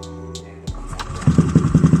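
Small single-cylinder four-stroke motorcycle engine, fitted with an ABF Racing BLT aftermarket exhaust with a 30 cm silencer, starting about a third of the way in and settling into a fast, even idle pulse. A few held music tones sound before it starts.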